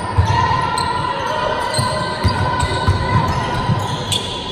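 Basketball game in play on a hardwood court in a large sports hall: a ball thudding in irregular bounces, with players calling out and the hall echoing, and a sharp knock about four seconds in as a shot goes up at the basket.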